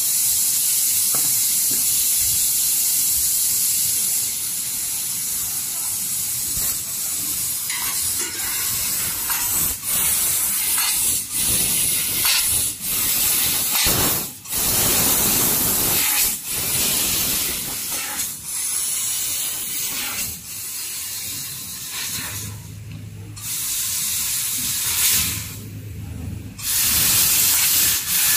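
Fiber laser tube cutting machine running with a loud, steady hiss of rushing air or gas, broken by short dips every few seconds. Twice near the end the hiss drops out and a low hum is left.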